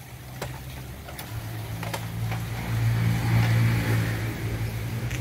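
A motor vehicle's engine running close by, a steady low hum that grows louder about halfway through and then eases off a little. Over it come a few light knocks of wooden slatted crates being handled and stacked.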